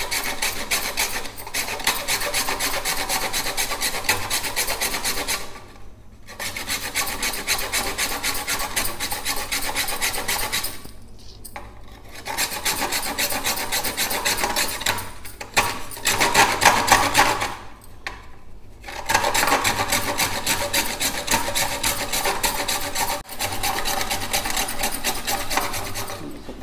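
A fired-clay diya (earthenware oil lamp) being grated on a small handheld kitchen grater with a perforated metal blade: a steady, rapid rasping of back-and-forth strokes that grinds the clay to powder. There are short pauses about six, eleven and eighteen seconds in.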